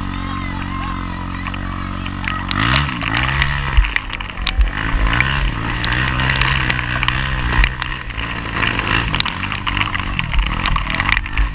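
ATV engine running steadily, then revving up and down repeatedly from about two and a half seconds in as the quad spins in mud, with sharp spatters and clicks of flung mud throughout.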